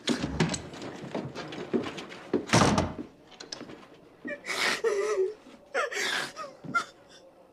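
Clicks and knocks of movement on wooden boards, then a heavy thud like a wooden door slamming shut about two and a half seconds in. After it come a woman's short, strained vocal sounds.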